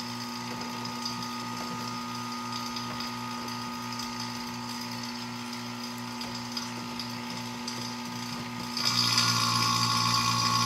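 Electric A/C vacuum pump running steadily, pulling a vacuum on a car's air-conditioning system to draw out moisture before the R134a charge.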